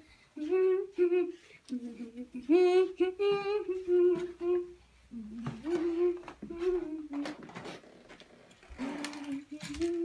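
A young boy humming and vocalizing in a string of held notes, mostly on one pitch with short dips lower, broken by brief pauses.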